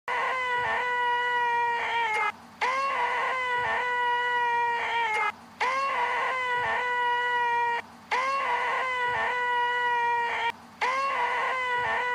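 A voice making a nasal, held 'eeeeeh' whine, the 'most annoying sound in the world', five times over. Each call scoops up in pitch, holds steady for over two seconds, then breaks off briefly before the next.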